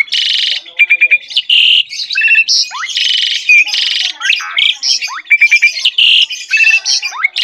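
Asian pied starling singing vigorously: a varied, continuous run of grating chattering notes, quick clicking trills and short rising whistles.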